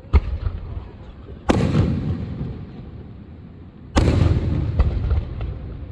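Fireworks exploding: a sharp bang at the start, then two louder booms about a second and a half and four seconds in, each trailing off in a low rumbling echo, with a smaller crack shortly after the last.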